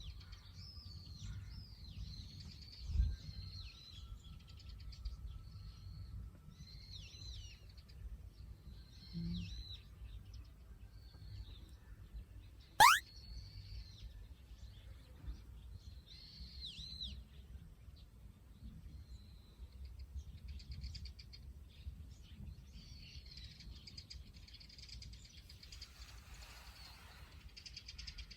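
Small birds chirping outdoors in short, repeated, curving chirps with pauses between. About 13 seconds in comes a single very quick upward-sweeping whistle, the loudest sound, and about 3 seconds in a low thump.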